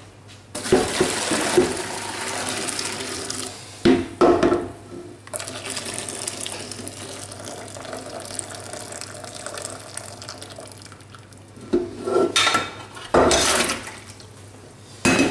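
Hot water from a pot of boiled crayfish poured out into a stainless-steel sink, a loud rush for a few seconds, then a steadier run of water as the crayfish are cooled in cold water to stop the cooking. The pot knocks against the sink a few times, around four seconds in and again near the end.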